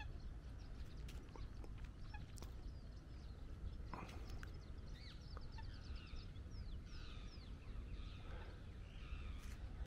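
Small birds chirping, with short, quick high calls that grow more frequent about four seconds in, over a low steady rumble.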